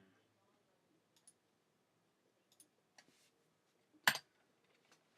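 A few isolated keystrokes on a small computer keyboard, sparse clicks with the sharpest about four seconds in.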